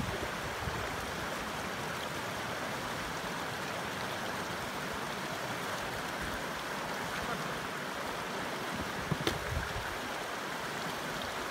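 Shallow mountain river rushing steadily over rocks and rapids. A couple of brief knocks come about nine seconds in.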